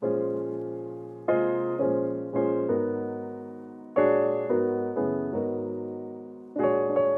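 Background piano music: chords struck about ten times, each fading away before the next.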